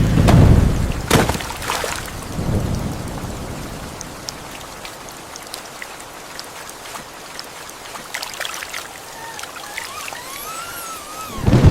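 Rain falling steadily, with a sharp thunder crack a little over a second in and a lower rumble just after. Near the end a dog whimpers: a thin, wavering whine that rises and falls.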